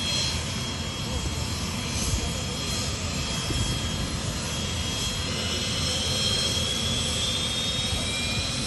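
Jet engine noise at an airfield: a steady rumble with a thin high whine that slowly rises in pitch over the last few seconds.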